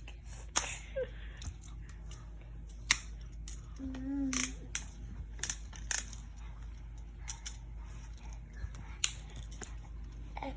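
Hard plastic parts of a Tobot transforming robot toy clicking and snapping as they are folded and pushed into place, in sharp irregular clicks.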